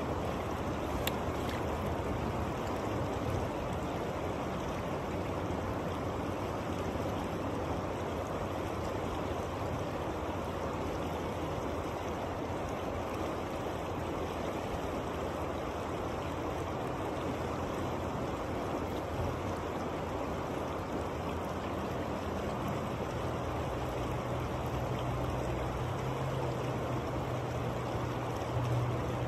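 Yuba River water rushing steadily over the rocks of a riffle at the bank. A low rumble underneath grows stronger over the last several seconds.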